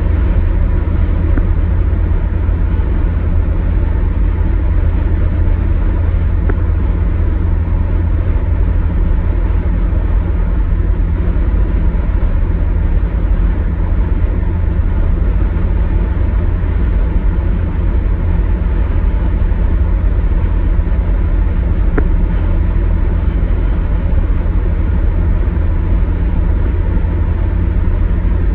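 Steady low road rumble heard inside a car cruising at highway speed: tyre and engine noise coming through the cabin, unchanging throughout.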